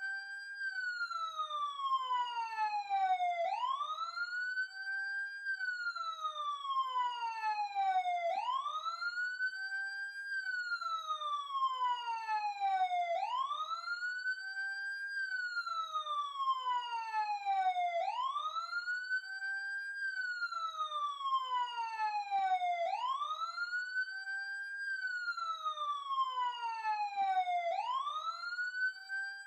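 Police siren in a slow wail: the pitch rises quickly, holds briefly at the top, then falls slowly back down, repeating about every five seconds.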